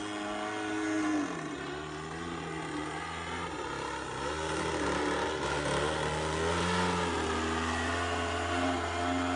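DLE-35RA 35cc single-cylinder two-stroke gasoline engine of a radio-controlled aerobatic plane in flight, its pitch dropping sharply about a second in as the throttle comes back, then wavering and rising again as the engine is throttled up through the manoeuvre.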